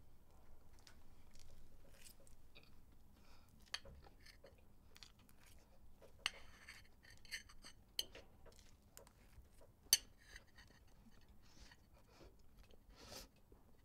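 A person eating cake: a fork clinking and scraping on a plate, with soft chewing in between. A few sharp clicks stand out, about four, six, eight and ten seconds in.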